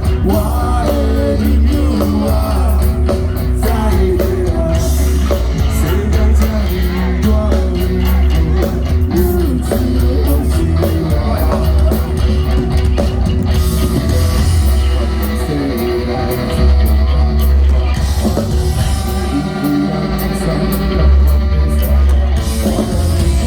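A rock band playing live with a singer, the sound loud and dense with heavy bass.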